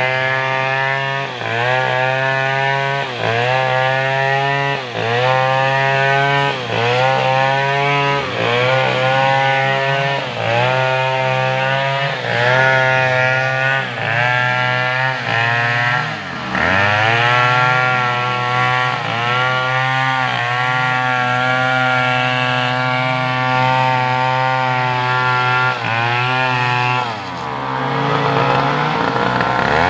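Chainsaw running at high revs while cutting wood. Its pitch sags and recovers every second or two as the chain loads up in the cut, with a deeper dip about halfway through and another change near the end.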